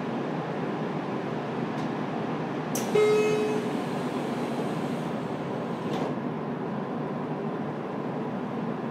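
JR Kyushu 303 series commuter train standing at a station as its doors close: a click, then a short warning tone about three seconds in, and the sliding doors shutting with a thump about three seconds later, over the steady hum of the stationary car.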